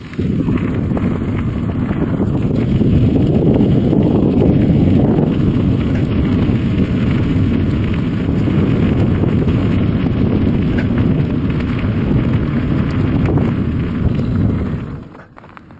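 Wind buffeting a bike-mounted camera's microphone while riding a gravel bike along a gravel path, a loud steady low rumble with the tyres rolling on gravel beneath it. It jumps up just after the start and drops away sharply near the end.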